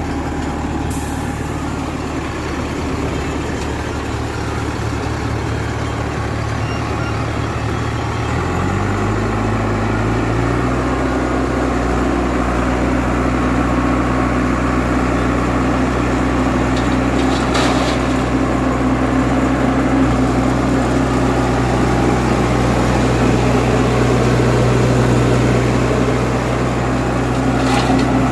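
Heavy diesel engine running. About eight seconds in, its revs rise over a couple of seconds and are then held steady at the higher speed.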